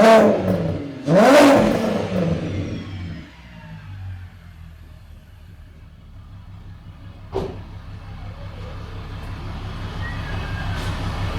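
VR6 24-valve six-cylinder engine, running through a straight exhaust with no cat or resonator and a Magnaflow muffler, blipped once to a sharp rev about a second in that falls back and settles to a steady low idle. A single short click comes a little past the middle.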